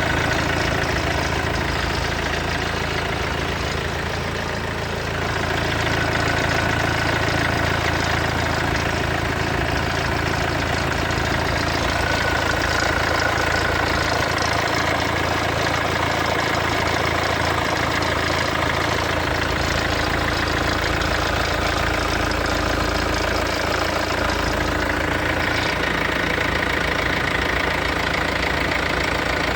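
Mercedes OM651 four-cylinder diesel idling just after a cold start, with a rattle over the engine sound. The owner suspects the alternator clutch pulley or the timing chain.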